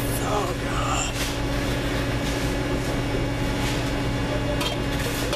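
Steady hum and drone of commercial kitchen equipment and ventilation, with a few short clanks of stainless steel pans being handled at the dish sink.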